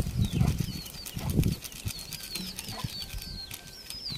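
Small birds chirping repeatedly in short high falling notes, over soft rustling and a few dull thumps as chilli powder is shaken from a paper packet onto fish in a pot.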